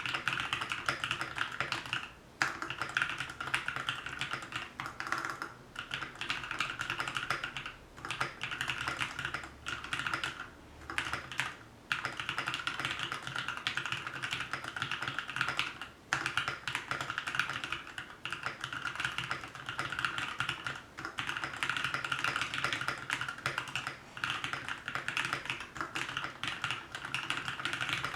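Typing on a custom DK61SE 60% mechanical keyboard with Krytox-lubed TMKB Red linear switches, XDA PBT keycaps, a steel plate and EVA case and plate foam. Fast, steady runs of keystrokes, broken by short pauses every few seconds.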